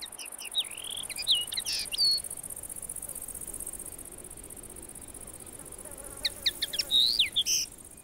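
Steady high-pitched chirring of insects, with quick sweeping chirps from small birds in a short run near the start and again about six seconds in.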